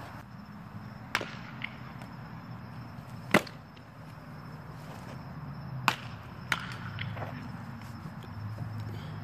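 A pitched baseball smacking into a catcher's mitt with one loud, sharp pop about three seconds in, with a few fainter pops and knocks before and after it over a low steady hum.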